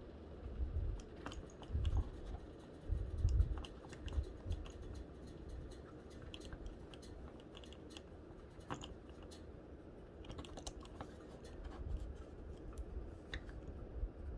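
Light plastic clicks and ticks from a posable plastic action figure being handled and adjusted on a tabletop, with a few soft, dull knocks in the first few seconds and again near the end.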